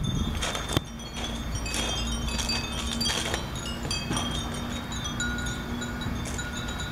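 Many glass furin (Japanese wind bells) tinkling in the breeze: short, clear, high rings overlapping at irregular intervals.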